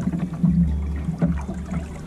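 Wind rumbling on the camera microphone while a small sailing dinghy is under way, with water washing along the hull and a few light knocks.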